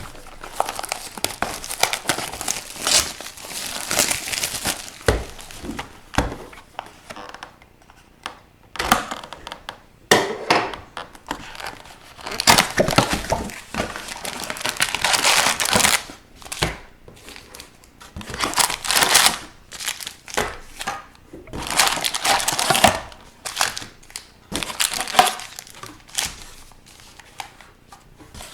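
Plastic and foil wrapping of a hockey card hobby box and its packs crinkling and tearing as they are opened, in irregular bursts of a second or two with short pauses between.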